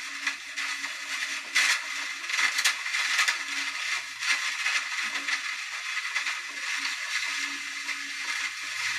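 Conzert amplifier hissing through its speaker: a steady hiss with irregular crackling static and a faint hum that comes and goes. The static is the fault under repair, which the technician traces to the preamp stage.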